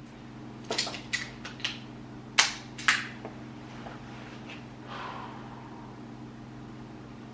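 A quick series of sharp clicks and knocks, about seven in the first three seconds and then a softer rustle, from an air pistol being handled between shots, over a steady low hum.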